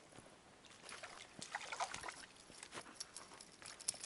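Water splashing and sloshing as a small hooked fish is pulled through the surface on a spinning rod and lifted out: irregular short splashes starting about a second in and lasting about three seconds.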